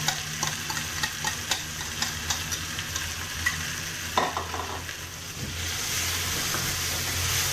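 Mashed sardines frying in a pan of sautéed onion and chilli: a steady sizzle under a wooden spatula scraping and knocking against the bowl and pan. The clicks stop about four and a half seconds in, and the sizzle then grows louder as the filling is stirred.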